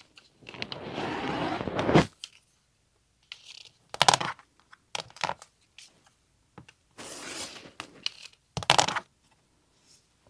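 Fabric being cut along an acrylic quilting ruler: one scraping cut lasting about a second and a half, followed by sharp clicks and knocks as the ruler and fabric are handled.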